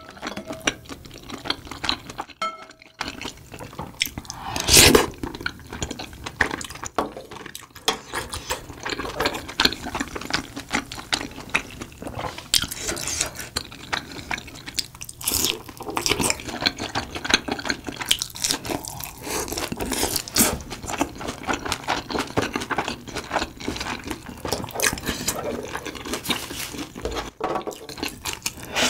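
Close-miked eating sounds: wet chewing and slurping of rice cakes in spicy broth, with crunching of fried seaweed roll and many small clicks of utensils against the bowl.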